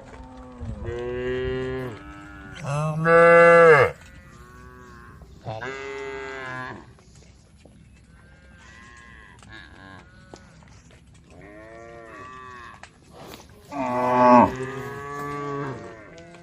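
A herd of cattle mooing: several cows bellow one after another, some calls overlapping, with the loudest about three seconds in and another near the end, each ending in a sharp drop in pitch.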